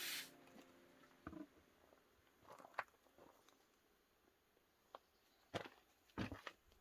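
Near silence with a handful of faint, scattered taps and knocks, the last two a little louder near the end.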